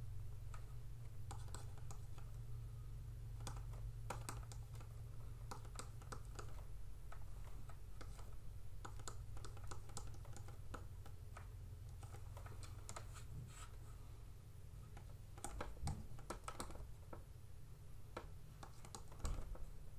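Scattered light clicks and taps of a stylus writing on a pen tablet, irregular and without rhythm, over a steady low hum, with a few louder taps near the end.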